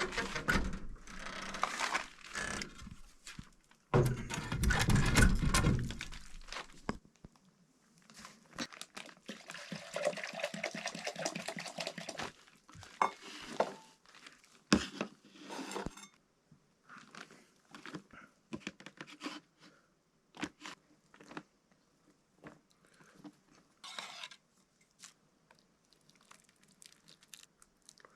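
Small kitchen handling noises: scattered clicks, crunches and rustling, with a louder, heavier stretch about four seconds in that lasts around two seconds.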